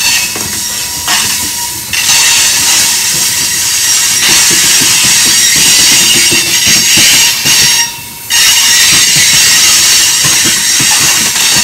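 Loaded rock hopper cars of a freight train rolling past, wheels clicking over the rail joints under a loud, high-pitched wheel squeal that drops out briefly about eight seconds in.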